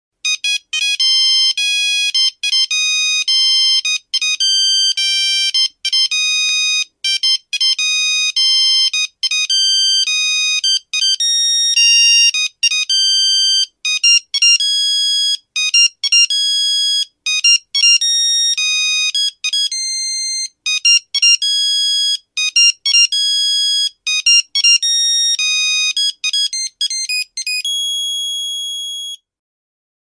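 Classic digital cell phone ringtone melodies: rapid electronic beeps, one note at a time, jumping between pitches, ending in a long held note that fades out.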